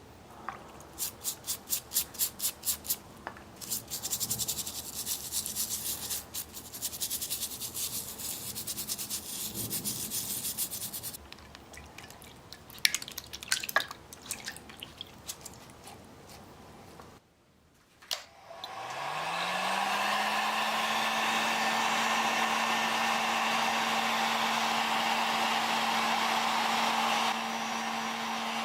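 Rapid scrubbing strokes and a few clicks, then a small electric motor starts up, rising in pitch over about a second, and runs steadily with a loud hiss through the second half.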